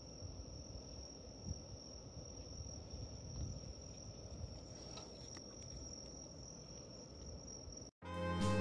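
Crickets trilling steadily on one high note over a low outdoor rumble. Near the end it cuts out and music starts.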